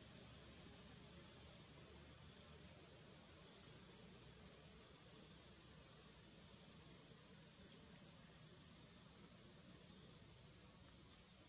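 Steady high-pitched chorus of insects, one even drone without a break.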